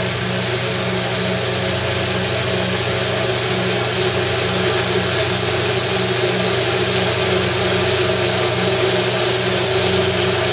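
Immersion blender running steadily with its blade in liquid in a stainless steel container, emulsifying a vinaigrette as olive oil is slowly poured in.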